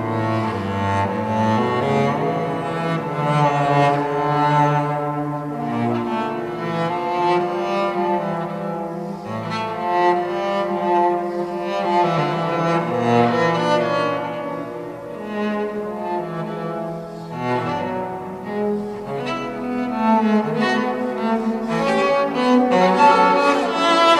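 Solo cello played with the bow: a melodic line of held notes moving from one to the next, the lowest notes near the start.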